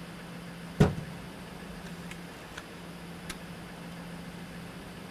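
A single heavy thump a little under a second in, over a steady low hum, with a few faint ticks afterwards.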